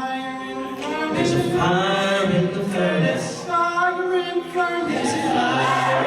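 A cappella vocal group singing in harmony without instruments: several held voice parts moving over a sustained low bass line.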